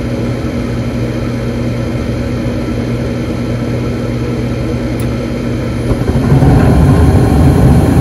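Bryant gas furnace's draft inducer motor running with a steady hum while the hot-surface igniter heats. About six seconds in, the burners light and a sudden, much louder rumbling rush of gas flame joins the hum.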